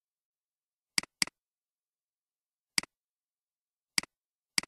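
Computer mouse clicking five times, each click a quick double tick of press and release. The first two come about a quarter second apart.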